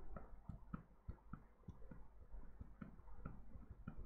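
Quiet room tone with a low hum and faint, irregular small clicks.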